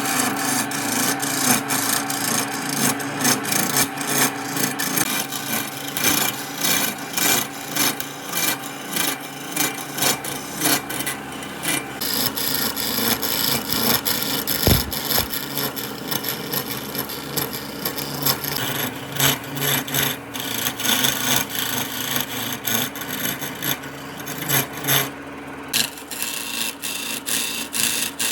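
Wood being scraped and rubbed with a tool in quick, repeated strokes, with a steady hum underneath.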